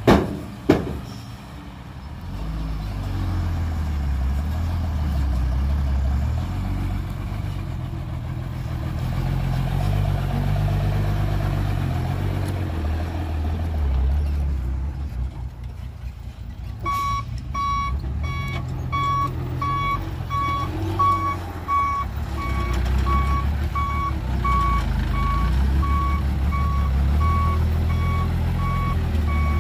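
Diesel dump truck engines running, with two sharp bangs right at the start. From a little past halfway, a dump truck's reversing alarm beeps at a steady rate over the engine.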